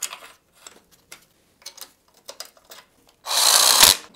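A few light metallic clicks and knocks as the bolts are fitted by hand, then, about three seconds in, a cordless driver runs in a short loud burst, driving in a mounting bolt of the power steering pump bracket.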